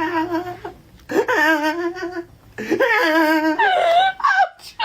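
Laughter sound effect: a voice laughing in three drawn-out bursts with a rapidly wavering pitch, then a higher rising-and-falling laugh near the end.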